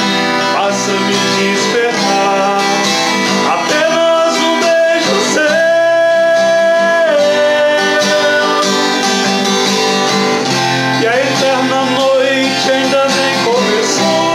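A man singing while strumming an acoustic guitar, with a long held sung note about six seconds in.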